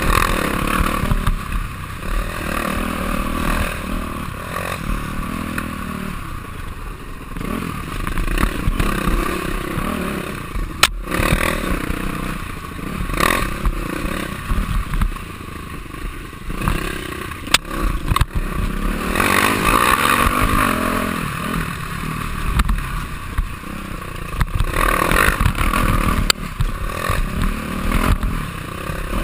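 Yamaha YZ426F four-stroke single-cylinder dirt bike engine revving up and down while riding a rough trail, heard from a helmet camera. A few sharp knocks cut through, about eleven seconds in and twice more a few seconds later.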